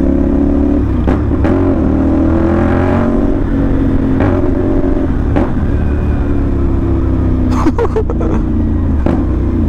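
CFMoto 450NK parallel-twin engine running loud through a short SC Project-style slip-on exhaust while the bike is ridden, its note rising with the throttle a second or two in, then easing back.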